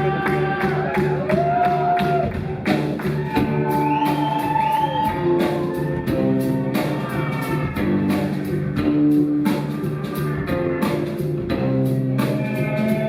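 A live band playing an instrumental passage, with drums keeping a steady beat under guitar and bass.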